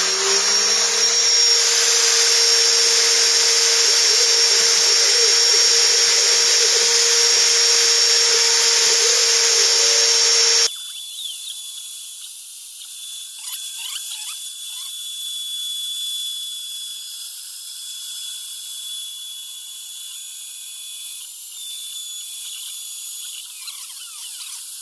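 Wood router on a homemade CNC machine running loud and steady with a constant whine as its bit cuts a template profile in plywood. About ten seconds in, the sound drops abruptly to a quieter, thinner, higher-pitched version of the same cutting, where the footage is sped up.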